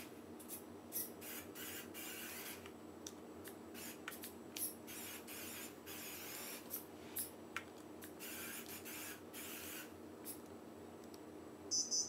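Small DC gear motors of an Arduino RC car whirring in short, irregular bursts as it drives and turns on a tiled floor, over a steady low hum. A brief high-pitched squeak comes near the end.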